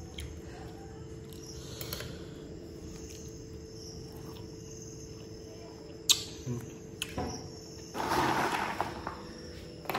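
Kerupuk crackers rattling and rustling in a plastic tub as a hand digs into them, about eight seconds in. Before that, a sharp click like a spoon on a glass plate, over a steady background hum and faint insect chirring.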